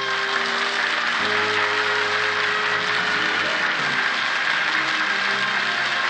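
Audience applause breaking out at once over orchestral music, the music's chords changing a little after a second in.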